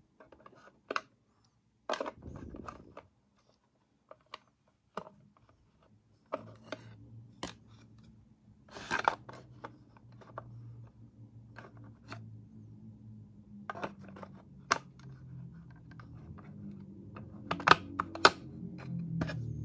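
Scattered clicks, knocks and scrapes of a Bodum coffee grinder's hard plastic housing being handled and fitted together. From about six seconds in, a low steady hum rises underneath and grows louder toward the end.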